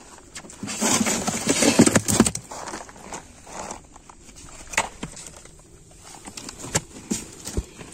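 Murrel (snakehead) fish tipped out of a plastic basin into a thermocol ice box: a wet, slithering, thudding rush about a second in that lasts about a second and a half. Scattered sharp taps and slaps follow as the fish are shifted about in the box.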